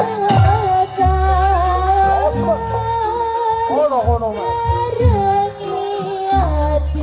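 Live Javanese gending music: a singing voice holds and bends a melody over drums with a heavy, pulsing bass and a regular percussion beat.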